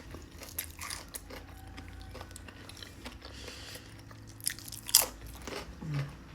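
Close-up chewing and biting of Mexican takeout food, with crunchy crackles and one sharp, loud crunch about five seconds in.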